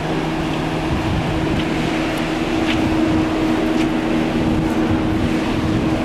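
Wind rushing over the microphone on a cruise ship's open deck, over a steady low hum from the ship's machinery.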